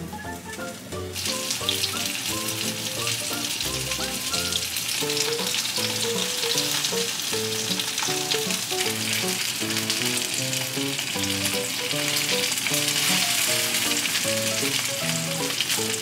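Pork rolls frying in oil in a hot frying pan, a dense crackling sizzle that starts about a second in as the meat goes into the pan and keeps up steadily. Background music with plucked notes plays underneath.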